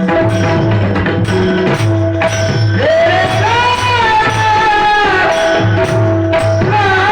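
Marathi devotional kirtan music: a voice sings a bending melodic phrase from about three seconds in, over a held melody line, a steady hand-drum beat and jingling percussion.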